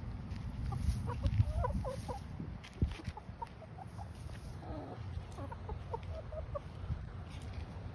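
Several hens clucking in short, scattered notes as they forage, over a low rumble on the microphone.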